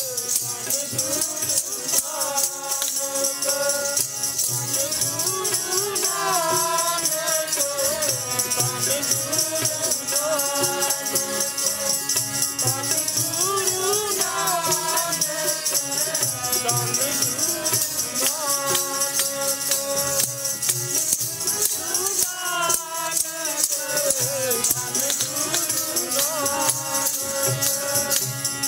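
Sikh kirtan: a wavering sung hymn melody over sustained harmonium-like chords, with low drum beats and a constant bright shaking or jingling percussion.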